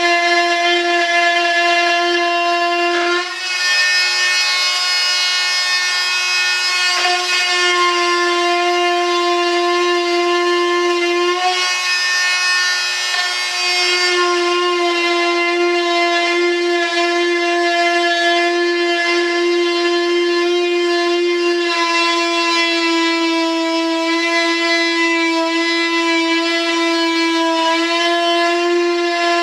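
High-speed rotary tool whining steadily as it cuts the excess fiberglass flange off a cured resin mold, its pitch shifting a few times as the cut loads and frees the tool.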